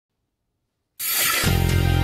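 About a second of silence, then a TV news weather intro theme starts suddenly with a bright rush, joined by deep bass notes half a second later.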